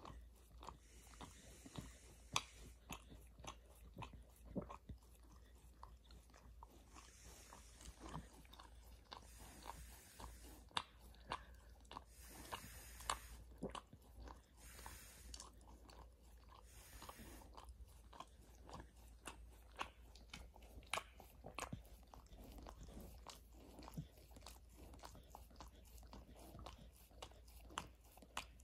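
A border collie chewing and crunching on something hard, with irregular sharp crunches coming in quick succession.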